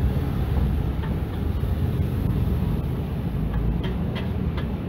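Steady low rumble of passing road traffic. Near the end, a spoon and fork clink lightly against a metal plate three or four times.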